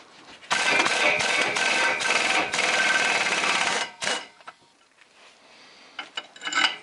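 Impact wrench hammering for about three and a half seconds, backing out the primary drive clutch retaining bolt on a Yamaha G29 golf cart engine, followed by a short second burst. A few light metallic clinks near the end.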